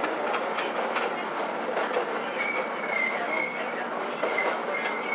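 Diesel railcar heard from inside the car: steady running noise with the wheels clicking over rail joints, and from about halfway a high wheel squeal that comes and goes.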